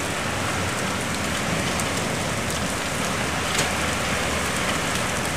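Heavy rain falling steadily in a downpour.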